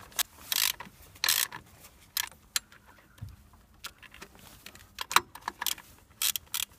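Socket ratchet wrench clicking in short, irregular bursts as it is swung back and forth to run down engine mount bolts, with light clinks of metal tools.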